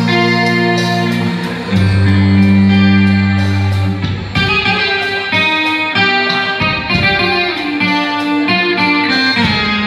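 Guitar playing a melody of single plucked notes over held low notes. The low notes sustain for about the first four seconds, then the line moves on note by note.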